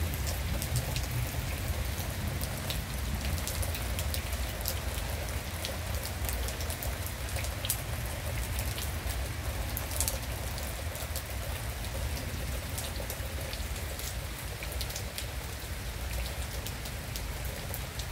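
Heavy rain pouring down, a dense steady hiss with many sharp drop strikes close by, over a steady low rumble of gusting wind.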